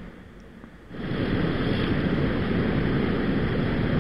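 Water rushing over rocks in a shallow stream, a steady noise that is quieter for about a second and then comes in louder.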